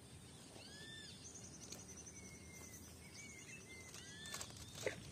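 Faint bird calls: several short arched whistles, and a high rapid trill heard twice, over quiet open-air background noise. A brief click near the end.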